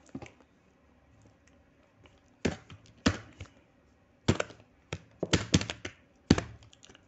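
Computer keyboard keys struck: a handful of separate clacks, then a quick run of several keystrokes about five seconds in, as shortcut keys are pressed.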